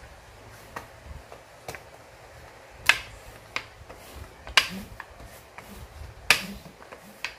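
Rolling pin clicking as it is rolled back and forth over bread dough: three sharp, loud clicks about a second and a half apart, with fainter clicks between.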